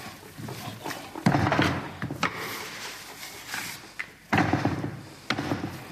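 A series of sharp knocks and thumps, the loudest a little over a second in and again just past four seconds.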